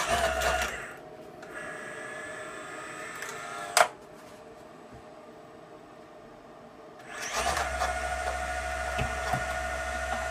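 Electric motor of a hard-drive platter-punching destroyer running as it punches holes through a platter. It runs in two spells, with a steady whine: once briefly at the start and again from about 7 seconds in. A single sharp clack comes just under 4 seconds in.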